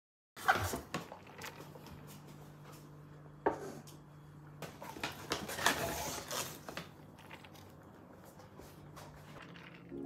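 A paper shopping bag rustling and crinkling as it is handled and takeaway coffee cups are lifted out, with several sharp knocks. A faint steady low hum sits underneath.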